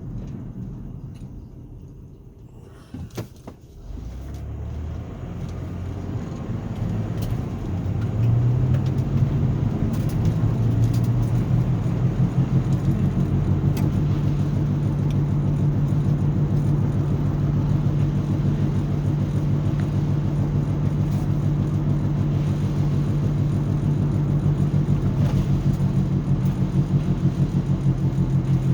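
Low drone heard inside the cabin of a 2005 Ford Freestar: after dipping a few seconds in, it climbs in pitch as the van picks up speed, then holds steady and louder. It is the unexplained noise and vibration the driver is trying to trace.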